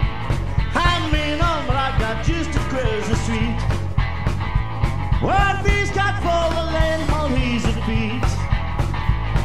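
Rockabilly band playing live: drums and hollow-body electric guitar over a steady beat, with a lead line that bends in pitch carried through the singer's microphone.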